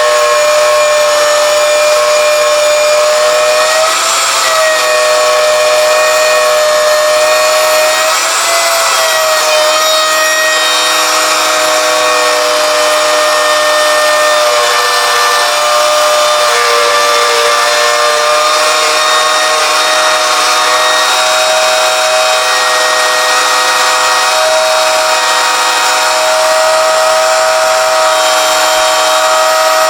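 Router running at full speed with a steady high whine, cutting a dado through red oak; its pitch sags briefly about four and about eight seconds in as the bit loads up.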